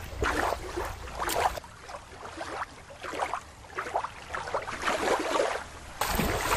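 Shallow river water splashing and trickling in short irregular bursts, the sound of toys being moved through the water.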